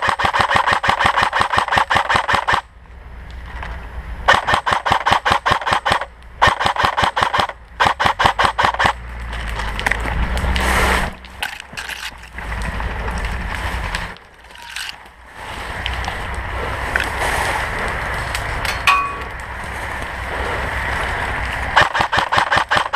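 Several bursts of rapid full-auto airsoft gunfire, each a few seconds long with short breaks between, over the low steady rumble of a BVP (BMP) tracked armoured vehicle's diesel engine. After about nine seconds the firing stops and the vehicle runs on. Another short burst of rapid shots comes near the end.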